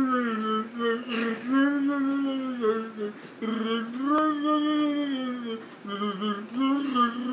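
A person imitating Chewbacca's Wookiee call with their own voice: long held calls that bend up and down in pitch, several in a row with short breaks between them.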